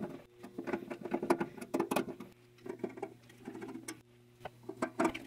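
Hand screwdriver driving a #10-24 machine screw into a tapped hole in a bandsaw's metal cover: a run of light, irregular scratchy clicks and scrapes.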